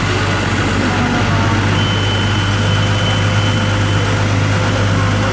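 Isuzu TW bonnet truck's diesel engine idling steadily.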